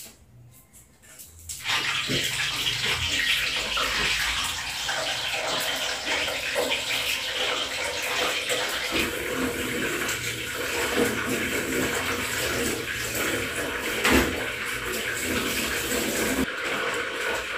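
Tap water running steadily into a sink, starting abruptly about two seconds in, with a single knock near the end.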